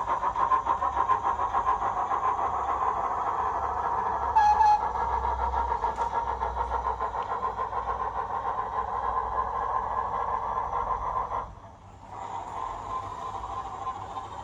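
Digital steam locomotive sound of a Beyer-Garratt from a Zimo sound decoder, played through a model locomotive's small speaker: a fast, even run of exhaust chuffs, with a short whistle toot about four seconds in. The sound dips briefly about two-thirds of the way through, then the chuffing goes on quieter.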